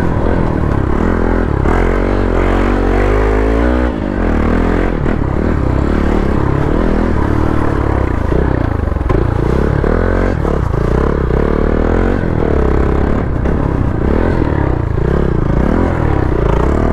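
Hero XPulse 200 dirt bike's single-cylinder engine being ridden hard off-road. Its pitch climbs for about two seconds early on, then rises and falls over and over as the throttle is worked.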